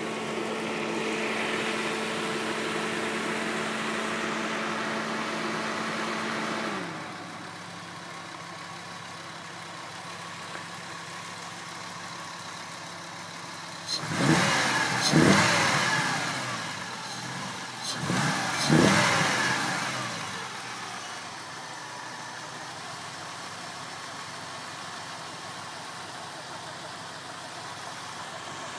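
Audi 80 Coupe's 2.3-litre five-cylinder NG engine, with a BN-Pipes exhaust, running at a steady raised idle that drops to a lower idle about seven seconds in. It is revved twice around the middle, rising and falling each time, then settles back to a steady idle. It runs without the odd noise that the owner put down to worn hydraulic lifters, after a new timing belt, water pump and idler pulley.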